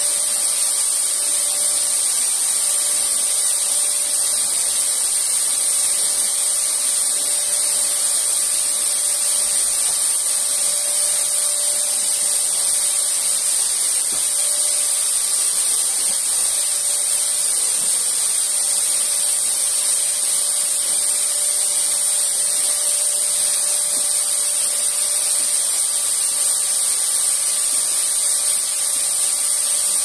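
Canister vacuum cleaner running steadily while its floor head is worked over a rug: an even, high-pitched rushing hiss with a faint whine beneath it.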